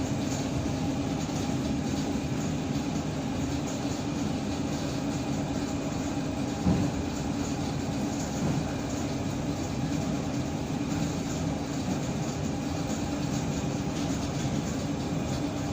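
ED9M suburban electric train running along the track, heard from inside the carriage: a steady rumble of wheels on rails, with a louder wheel knock about seven seconds in.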